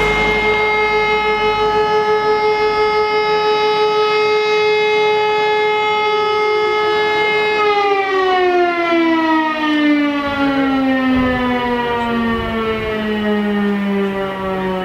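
Civil defence siren sounding a steady tone. About eight seconds in it winds down, its pitch falling slowly as the rotor coasts to a stop. This is the siren alarm calling out the volunteer fire brigade.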